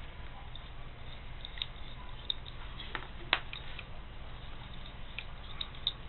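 Faint ticks and rustles of fingers untwisting and straightening the copper wire pairs of a twisted-pair network cable, with one sharper click a little past the midpoint, over a steady low hum.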